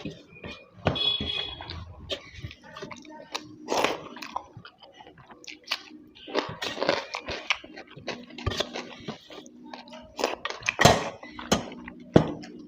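Close-miked chewing and eating: irregular wet mouth sounds, smacks and small clicks of someone eating curry with rice and puri by hand.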